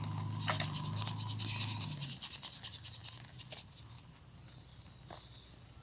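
Insects trilling in a fast, pulsing chirp that fades after about three seconds, with a low steady hum that stops about two seconds in. A few light clicks of a metal spatula against a frying pan as food is stirred.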